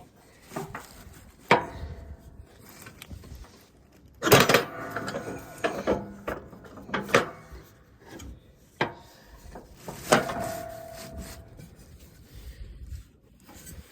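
Clanks and scraping from metal parts of a riding mower's deck and belt being worked loose by hand: four or five sharp knocks, the loudest about four seconds in, a couple of them ringing briefly.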